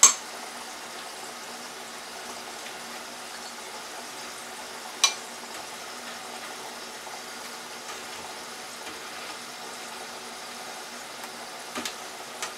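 Hot oil bubbling and sizzling steadily in an electric deep fryer as French fries cook. Metal tongs click sharply against a wire rack right at the start and again about five seconds in, with a few lighter ticks near the end.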